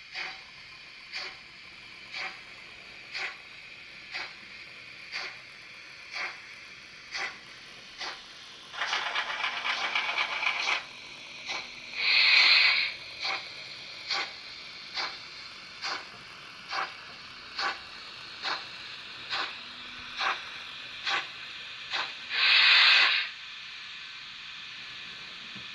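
Sound decoder of a Märklin HO-scale SBB Eb 3/5 steam locomotive model, playing slow, even exhaust chuffs about once a second through the model's small speaker. A rapid rattling hiss lasts about two seconds midway, and two short, loud whistle blasts sound, the first about halfway through and the second near the end.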